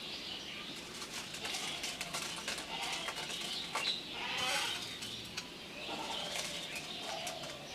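Light rustle of chanachur, a dry fried snack mix, sprinkled by hand onto a plate of puffed rice, loudest about four seconds in, with a bird calling softly in the background.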